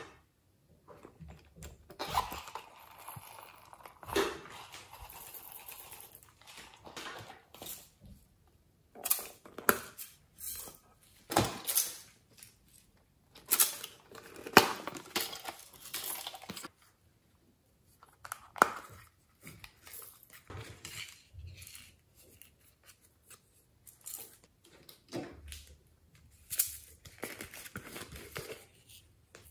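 Close-up handling of plastic toys and containers over a glass dish of slime: an irregular series of sharp clicks and taps, with softer rubbing and rustling between them.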